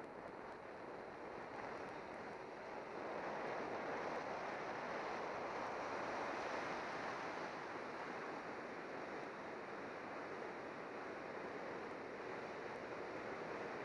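Wind rushing past the camera on a bicycle descending at speed, a steady rushing noise that grows louder about three seconds in.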